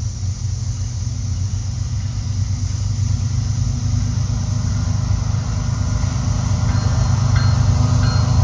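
Canadian National freight train's diesel locomotives rumbling steadily as the train comes on, growing slowly louder.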